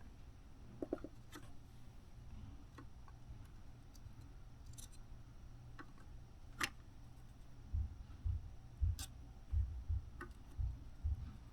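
Quiet hand work resoldering a circuit board: faint, scattered clicks and light taps of the soldering iron and solder on the board over a low steady hum. Soft low bumps come in the last few seconds.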